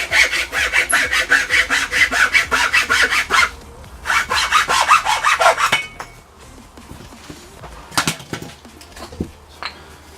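A saw cutting through wood in quick, even back-and-forth strokes, about four a second. The sawing pauses briefly about three and a half seconds in, runs on for about two more seconds, and then stops. A couple of sharp knocks follow.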